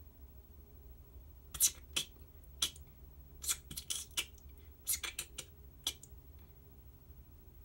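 About a dozen sharp, high clicks in uneven clusters over about four seconds, over a steady low hum.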